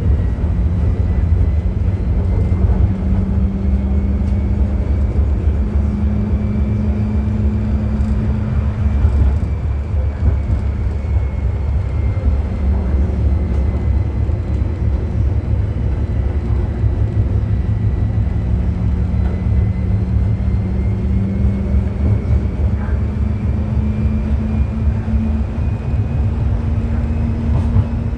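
Forchbahn electric railcar running along street tram tracks, heard from the driver's cab: a steady low rumble of wheels on rail, with a faint high motor whine that drifts slowly up and down as the speed changes.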